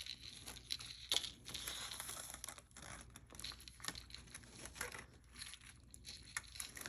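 Faint rustling and small irregular clicks of a gold-tone necklace with fuzzy balls and rhinestones being handled and stretched out to measure its length.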